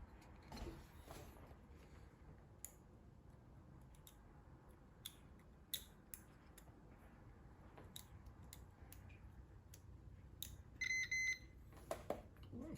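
Multimeter probe tips clicking and tapping against a wiring-harness connector's pins. About 11 seconds in, the meter gives a short high continuity beep, the sign that the probed wire has a complete circuit to that pin.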